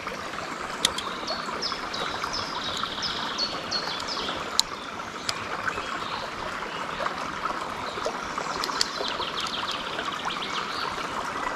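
River water flowing steadily over stones, with two runs of quick high bird twittering and a few sharp ticks.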